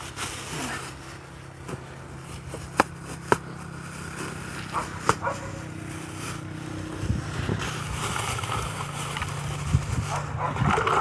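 Ice being tipped from a plastic bag into a plastic bucket of water: the bag rustling, with a few sharp knocks of ice against the bucket. A faint steady low hum runs underneath.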